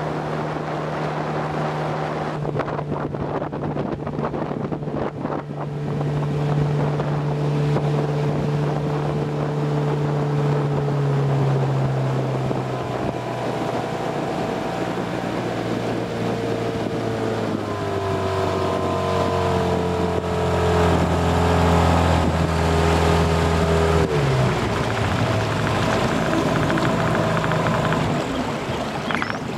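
Small boat's outboard motor running under way, its pitch drifting slowly lower; about three-quarters of the way through it is throttled back sharply to a low idle as the boat slows. Wind rumbles on the microphone throughout.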